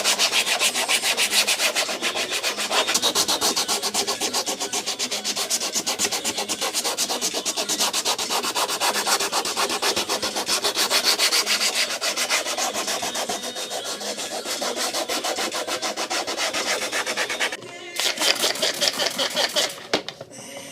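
Fine-grit sandpaper rubbed by hand over a Mini Cooper JCW front bumper in rapid back-and-forth strokes, with a short pause near the end before the sanding resumes.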